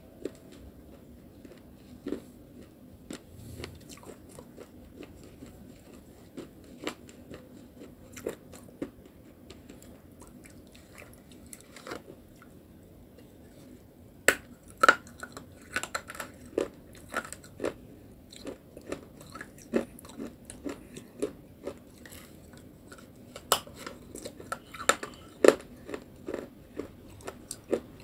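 Close-miked biting and chewing of crunchy baked clay (clay pot pieces with wet clay paste): sharp crunches and crackles, sparse at first, coming thicker and louder from about halfway through.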